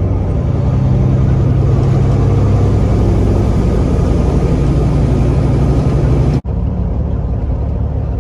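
Cab interior sound of a Peterbilt 389's Caterpillar C15 inline-six diesel running steadily while the truck drives, with engine drone and road noise. The sound drops out for an instant about six seconds in, then carries on.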